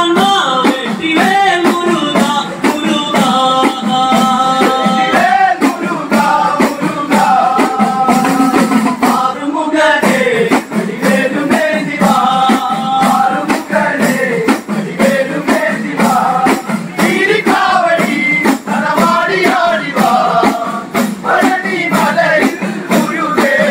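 Chinthu pattu: a group of men singing a devotional song in unison to a fast, steady beat of udukku hourglass drums.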